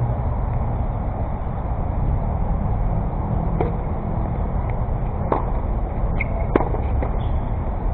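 Tennis balls struck by rackets in a rally: a sharp pop of the serve a little before halfway, then two more hits over the next few seconds, the last one the loudest, over a steady low rumble.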